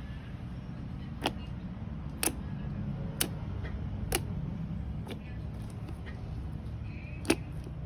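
Slime being played with by hand, making sharp popping clicks about once a second over a steady low hum.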